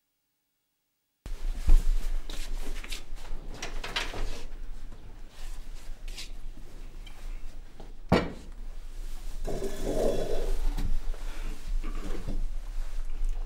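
After about a second of silence, household handling sounds in a small kitchen: scattered knocks and clatters, one sharp knock about eight seconds in, then a scraping stretch as a chair is pulled out and sat on at the table. A low steady hum runs underneath.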